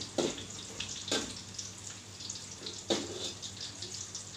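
Lemongrass and onion sautéing in hot oil in a steel wok, a steady crackly sizzle, with a metal spatula scraping the wok three times.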